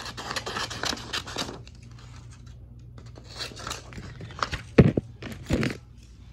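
Paper rustling, crinkling and tearing as strips of paper are handled, in spurts, with two sharp knocks a little under a second apart near the end.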